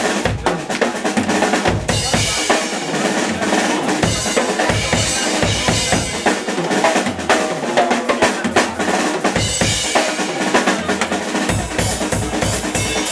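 Live funk band playing an instrumental groove, led by a drum kit with dense snare, kick and cymbal hits over bass and other pitched instruments.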